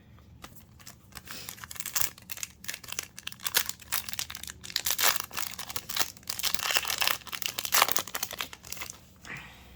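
Foil wrapper of a Yu-Gi-Oh! booster pack crinkling and tearing as it is opened and handled, in a run of irregular crackles that is busiest in the middle.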